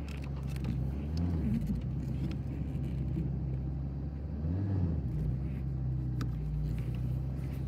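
Car engine running on the road, with a steady low hum whose pitch rises and falls twice.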